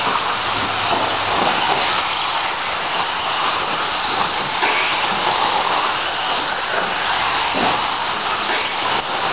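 TLR 22 electric 1/10 buggies racing around an indoor dirt track: a steady hissing whir of motors and tyres that keeps up without a break.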